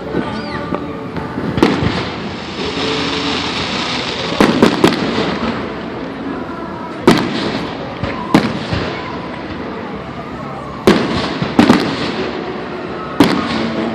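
Fireworks going off: about seven sharp bangs, one every second or two, with a crackling hiss a few seconds in, over faint background voices.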